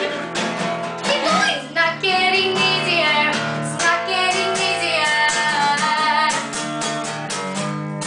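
Acoustic guitar playing chords, with a voice singing along over parts of it.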